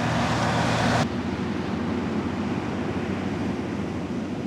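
Massey Ferguson 40RS combine harvester running, its six-cylinder turbocharged Valmet diesel and threshing machinery making a steady drone with a low hum. About a second in, the sound changes abruptly and loses much of its hiss, as at a cut between shots.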